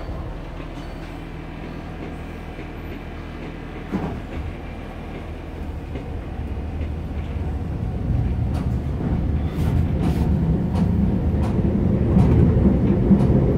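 Inside a Class 483 ex-London Transport 1938 tube stock electric train pulling away from a station: the traction motors and running gear grow steadily louder as it accelerates. There is a single knock about four seconds in, and rail-joint clicks come more often toward the end.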